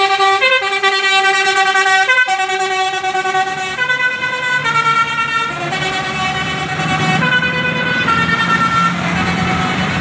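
Bus 'telolet' musical horn playing a tune of held notes that step to a new pitch about every second. The notes grow fainter in the last few seconds as low traffic noise comes up.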